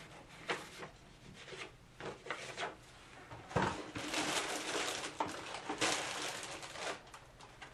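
Plastic parts of a hair steamer's hood and bracket being handled and fitted together: a few light clicks and knocks, then a longer stretch of rubbing and scraping from about three and a half seconds in.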